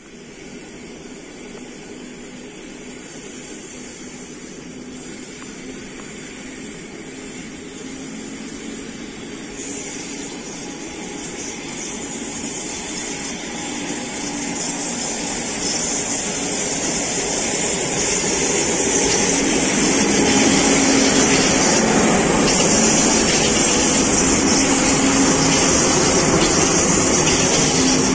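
ChS7 electric locomotive hauling a passenger train away from a standstill, its running noise growing steadily louder as it nears and draws alongside. A high hiss joins in about ten seconds in.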